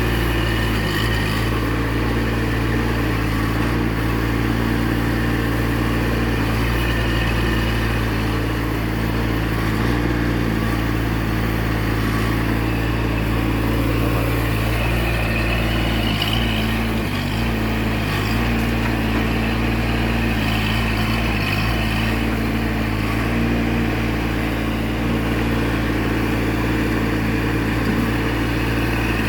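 Mini excavator engine running steadily, with a brief dip about two-thirds of the way through.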